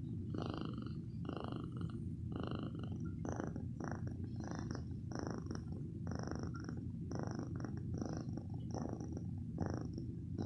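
Domestic cat purring loudly and steadily, the purr pulsing with each breath.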